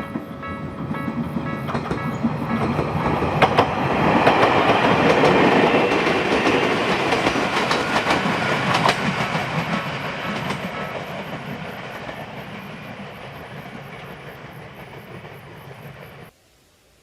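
Local electric train of the Ueda Electric Railway Bessho Line passing over a level crossing, its wheels clattering over the rail joints. It grows loudest about five seconds in, then fades slowly as it runs away, and cuts off suddenly near the end.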